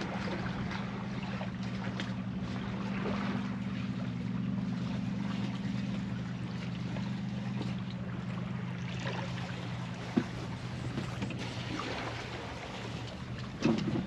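Water rushing along the hull of an Alberg 30 sailboat under way, over a steady low hum, with two sharp knocks near the end.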